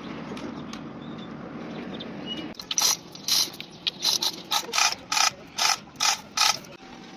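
Hand ratchet wrench worked in about ten quick strokes, two to three a second, each a short burst of sharp clicks, tightening a fastener. A steady low hum comes before the strokes start.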